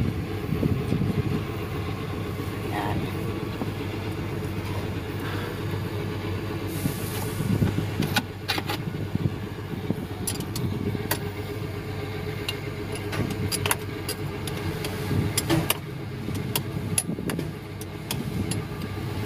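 Isuzu 10PE1 V10 diesel engine idling steadily, with scattered sharp clicks and taps as the injection pump's fuel lines are worked on by hand.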